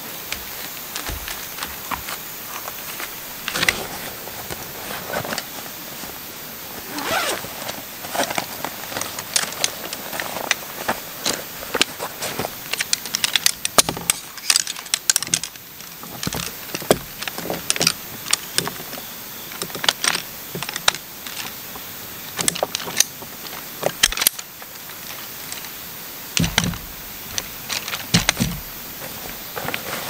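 Aluminium poles of a folding camp chair clicking and rattling as the frame is fitted together, with nylon rustling. The clicks come quickly and thickly in the middle, and two heavier thumps sound near the end.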